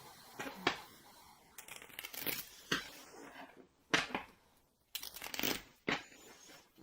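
Tarot cards being shuffled and handled, with a series of irregular rustles and slaps of cards against each other.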